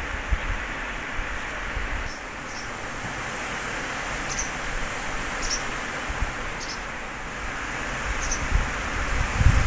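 Strong wind rushing through trees with a steady rustle of leaves. Near the end, gusts buffet the microphone with a low rumble.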